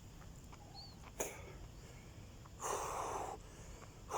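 A person breathing hard, out of breath from exercise: one long, heavy exhale about three seconds in and another starting near the end, with a sharp click about a second in.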